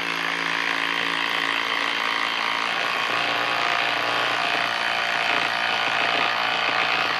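Hilti cordless impact driver hammering steadily under load as it drives a 4-inch by 1/2-inch lag screw into a wood log through a socket.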